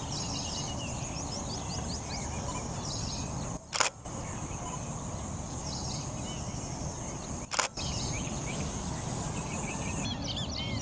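Outdoor ambience of a steady high-pitched insect drone that stops near the end, with scattered small bird chirps and a low background rumble. Two sharp clicks come about four seconds apart.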